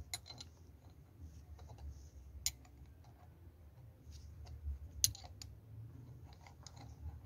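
Faint metallic clicks of a spanner working the bolt of an earth-rod clamp as it is tightened down on a larger-gauge earth wire. The clicks are scattered, the sharpest about two and a half and five seconds in.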